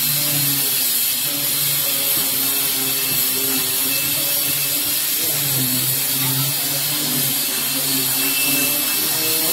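Electric power tool running steadily, a hissing whine over a low hum whose pitch wavers slightly.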